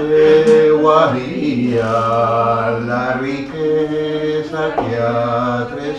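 People singing a slow, chant-like song in long held notes, the pitch changing in steps every second or so.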